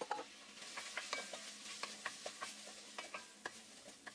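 Wooden spoon stirring and scraping raw arborio rice and diced onion in a hot enamelled Dutch oven, with irregular knocks against the pot, a few ringing briefly, over a light sizzle of oil. The rice is being toasted and coated in oil before the wine goes in.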